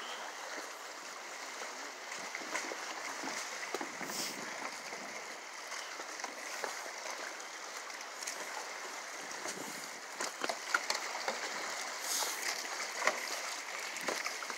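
Small waves washing and lapping against boulders at the water's edge, a steady rushing wash. A few sharp clicks and knocks come near the end.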